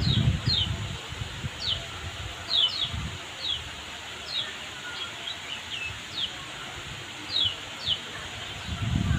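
A songbird giving short, high chirps, each slurring quickly downward, repeated about a dozen times at uneven intervals. A low rumble comes near the start and again near the end.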